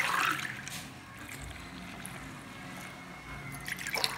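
A short splash of water from a steel tumbler onto ragi flour in an aluminium pressure cooker at the very start, as the pour ends. Then a steady faint background hum, and a brief noise near the end.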